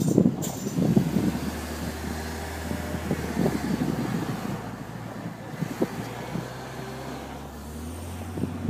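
Car driving slowly, heard from inside the cabin: a steady low engine hum, with irregular gusts of wind buffeting the microphone.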